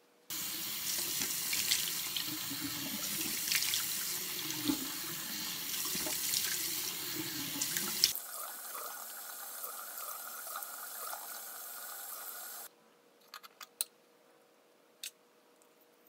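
Bathroom tap running into the sink, with splashes as hands scoop water to rinse the face. About halfway through the splashing gives way to a thinner, steadier run of water. The water stops abruptly about three-quarters through, followed by a few small clicks.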